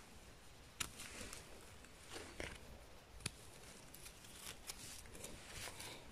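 Faint handling noise: light rustling with a few short, sharp clicks as chanterelle mushrooms are picked and trimmed and brushed clean with a mushroom knife.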